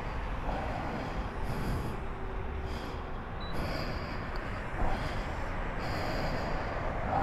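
A person's breathing close to the microphone, a puff roughly every second, over a steady low rumble.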